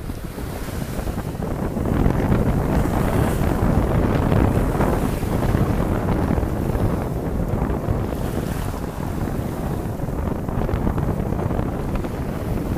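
Wind buffeting the microphone over small waves washing in at the shoreline; a steady rough rush, a little louder from about two seconds in.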